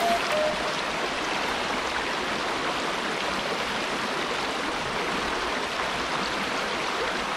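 Shallow river rushing over rocks: a steady, even rush of water.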